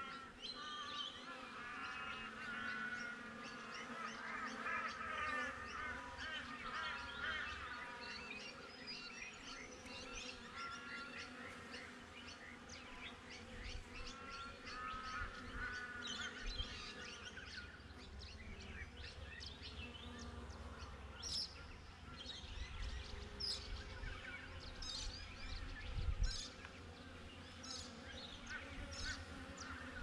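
Honeybees buzzing around the hive entrance with a faint, steady hum, while small birds chirp and sing throughout; in the last third a sharp high chirp repeats about once a second. A brief low bump near the end is the loudest moment.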